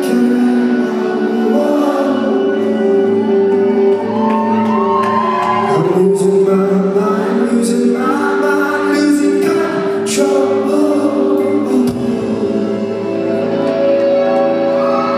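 Rock band playing live with a lead singer: held notes and a steady bass under a sung line, heard at concert volume.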